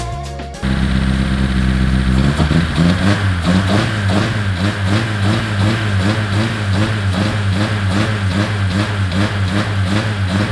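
Modified VW Gol Quadrado engine running with the hood open. It starts out steady about half a second in, then from about two seconds in settles into a lumpy idle that rises and falls about twice a second.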